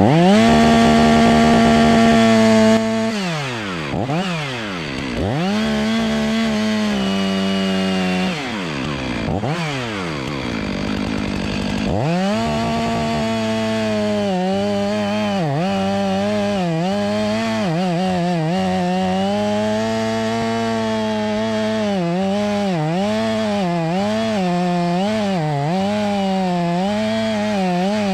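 Stihl two-stroke chainsaw running at full throttle, then throttled down and revved back up several times. From about 12 seconds in it is held at high revs with quick repeated dips in pitch as it works through wood. It runs strongly just after a cold start in freezing weather.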